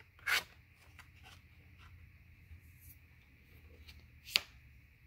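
Tarot cards being handled: a short swish of a card sliding just after the start, faint rustles and ticks, and a sharp card snap about four seconds in.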